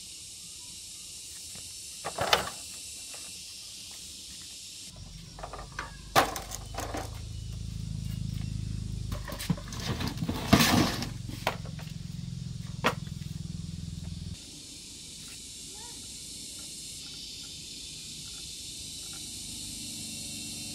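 Metal hand tools clinking and clanking in a few sharp knocks during motorbike repair work, over a steady high hiss of insects. A low rumble comes in about five seconds in and cuts off suddenly about fourteen seconds in.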